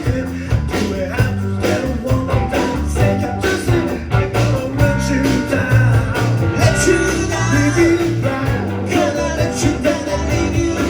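Live rock band playing a song with a singer over bass and a steady drum beat.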